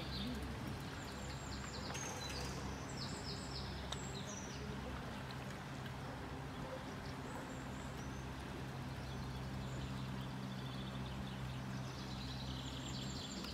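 Steady rushing of a fast-flowing river, with small birds chirping in short bursts about two to four seconds in and again near the end, over a low steady hum.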